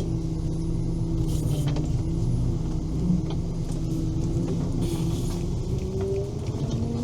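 Engine of a Veter 6x6 all-terrain vehicle running steadily while driving, a low drone whose pitch drifts slightly up and down.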